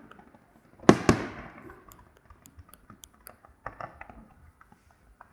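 Fireworks: two loud bangs in quick succession about a second in, each trailing off in a fading echo, then scattered faint crackling pops.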